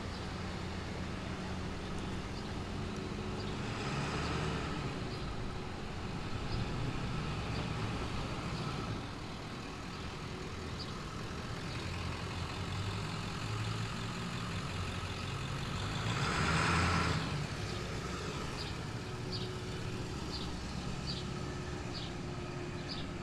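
Street traffic: engines of passing motor vehicles running, with a swell as a vehicle passes about four seconds in and a louder pass at about seventeen seconds.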